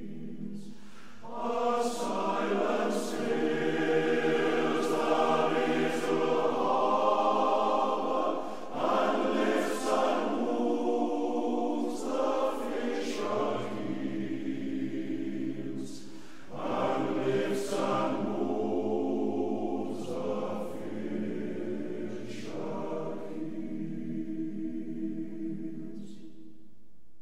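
Background choral music: a choir singing long, held phrases.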